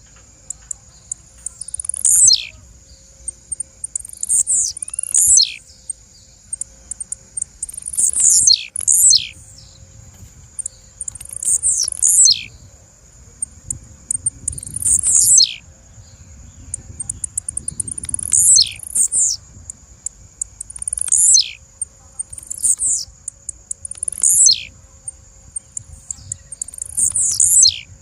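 Blue-black grassquit (tiziu) calling over and over: short calls, each a quick downward sweep from very high pitch, repeated every couple of seconds. A faint steady high tone runs underneath.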